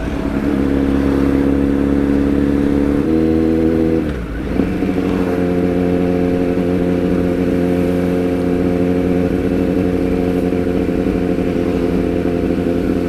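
Kawasaki Z900 inline-four engine running steadily while the motorcycle cruises at an easy pace. The engine note shifts about three seconds in and dips briefly about a second later, then holds steady.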